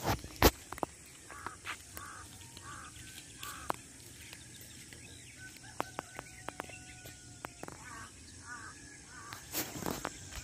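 Crows cawing in short runs of repeated calls, once early on and again near the end. A sharp knock just after the start is the loudest sound.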